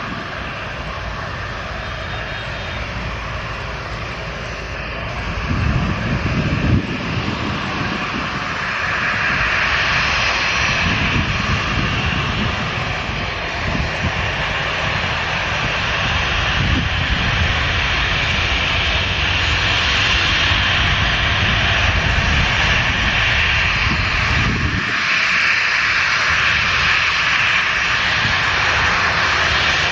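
Jet airliner's engines running loud and steady, getting louder about a third of the way in and staying up, with gusty wind buffeting the microphone.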